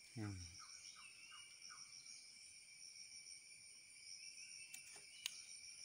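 Insects chirring steadily in the background at several high pitches. A brief falling vocal sound comes just after the start, and a couple of faint clicks near the end.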